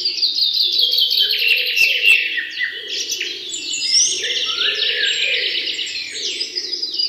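Dense chorus of birds chirping and twittering, many quick calls overlapping, with a softer, lower wavering call underneath. It starts suddenly.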